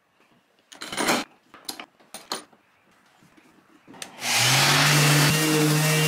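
A few short knocks and scrapes of handling in the first half. Then, about four seconds in, a random orbital sander switches on and runs steadily on a wooden panel: a loud sanding noise over a low motor hum.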